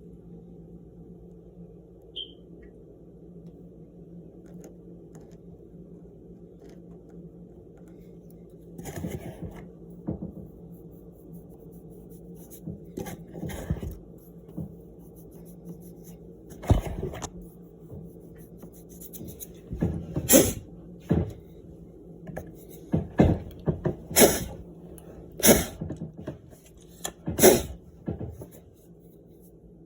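Irregular clicks and knocks of small objects being handled and set down, sparse at first, then louder and more frequent in the second half, over a steady low hum.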